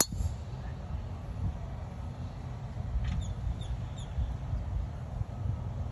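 A golf driver striking the ball off the tee: one sharp crack right at the start. A low rumble of wind on the microphone follows.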